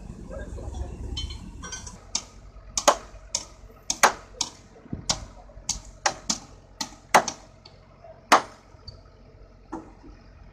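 Irregular sharp knocks, about two a second, starting about two seconds in and fading near the end: hammering on wooden concrete formwork.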